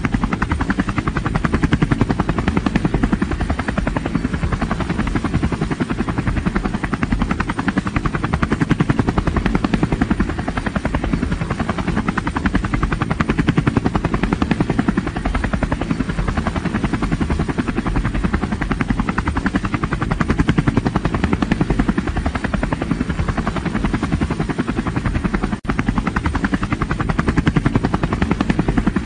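Aircraft running steadily: a loud, deep rumble with a fast, even pulsing. It drops out very briefly about 25 seconds in.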